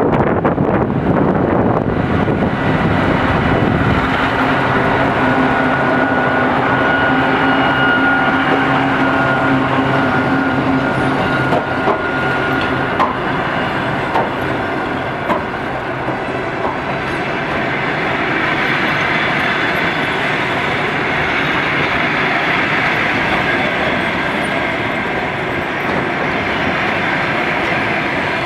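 2TE116 twin-section diesel locomotive hauling a passenger train past: a loud, steady diesel drone with a held whine in the first half. In the second half it gives way to the rolling wheel noise of the passenger cars going by.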